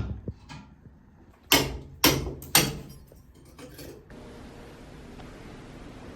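Three loud knocks about half a second apart, with fainter knocks around them, then a steady hiss.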